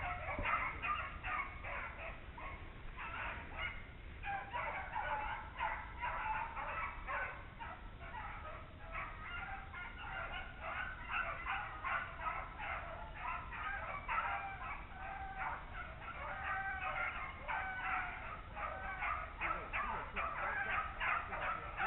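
A pack of beagles baying while running a swamp rabbit's track: a steady stream of short, overlapping, fairly faint cries.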